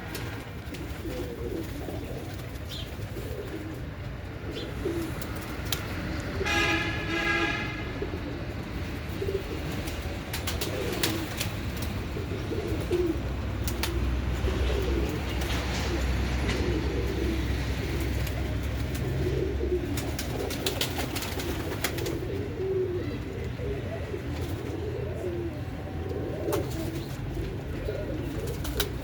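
Domestic pigeons cooing, several at once in overlapping low calls, with scattered sharp clicks and taps among them.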